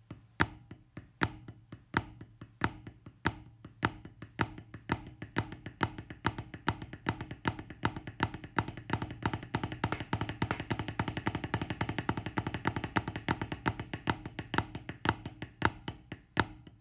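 Drumsticks playing Swiss Army Triplets (flam-tap-tap) on a rubber practice pad, giving dull, dry taps with an accent on each flam. The pattern starts slow, speeds up to a fast, even stream of strokes in the middle, then slows back down near the end.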